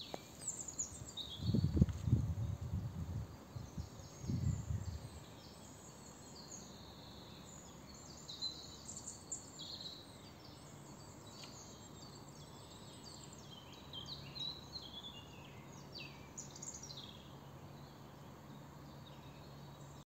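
Woodland birds singing, many short chirps and trills overlapping throughout. Two louder low rumbles come about two and four seconds in.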